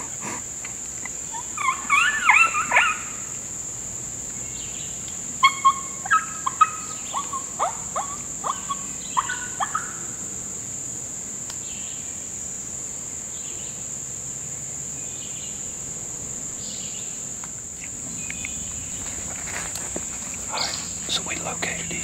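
Steady high-pitched insect drone of the summer woods, with a run of loud, short chirping calls that swoop down in pitch, in two bursts between about two and ten seconds in.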